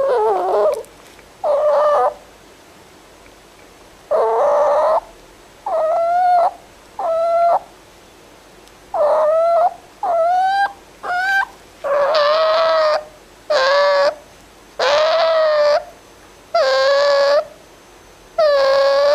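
Fennec fox making a run of about a dozen short, pitched whining calls, each under a second long and bending slightly in pitch, with short pauses between them; the later calls come longer and stronger.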